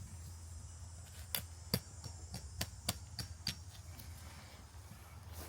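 About half a dozen light, irregular knocks and clicks, between one and three and a half seconds in, from tent poles and pegs being handled while a tent is put up.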